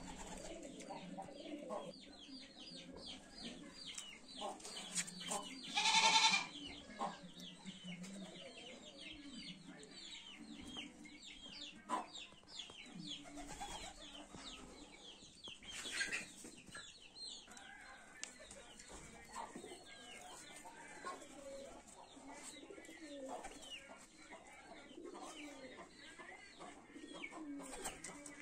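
Village yard ambience: many small birds chirping steadily, with a few louder animal calls, the loudest about six seconds in and another near sixteen seconds.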